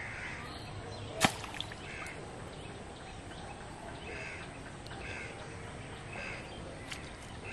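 Crows cawing over and over, with a single sharp snap a little over a second in.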